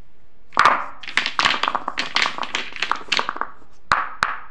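Small plastic paint bottles set down one after another on a paper-covered surface: a quick run of light knocks and clatters, then two separate sharper knocks near the end.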